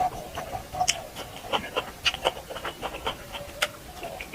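Close-miked chewing and wet lip-smacking while eating duck curry: a string of short, sharp mouth clicks, several a second.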